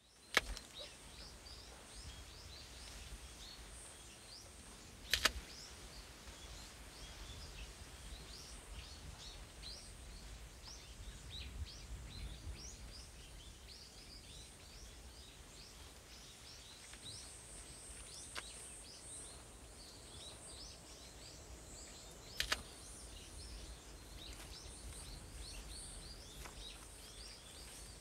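Outdoor field ambience: small birds chirping in many short, high calls over a low steady rumble, broken by a few sharp clicks, the loudest at the very start, about five seconds in and about twenty-two seconds in.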